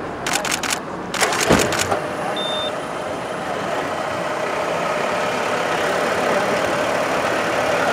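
Mercedes-Benz car's engine starting about a second and a half in, after two quick runs of sharp clicks, then running at a steady idle.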